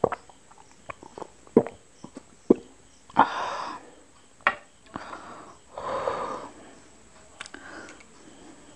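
Close-miked mouth sounds after drinking from a glass: sharp swallowing clicks and gulps, then two long breathy exhales, the first about three seconds in and the second about six seconds in.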